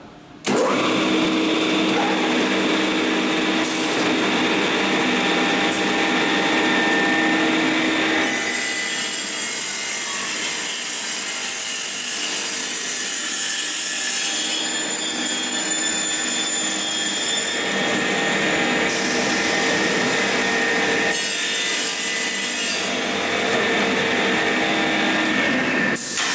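Automatic tenoning machine for wooden beehive-frame top and bottom bars starting up about half a second in, then running: its electric cutter motors give a steady tone while the cutters mill joints into the wooden bars, the cutting noise swelling and easing as bars pass through.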